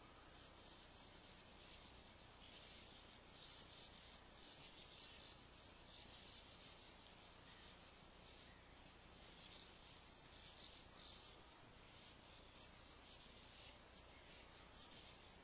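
Sand martins twittering at their nesting colony: faint, high, scratchy chirrs in irregular overlapping bursts.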